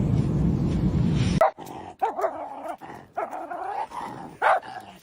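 A loud, steady low rumble cuts off abruptly about a second and a half in. A dog follows with a series of short whining, grumbling cries that bend up and down in pitch.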